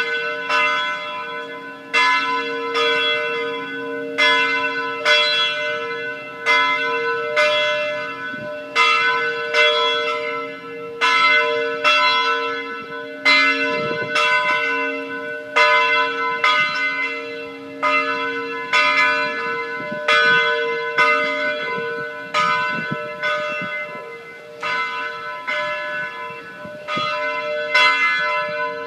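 Church bells ringing in celebration, rung to mark the election of a new pope. There is a strike about once a second at slightly uneven spacing, and each stroke rings on as a lingering hum into the next.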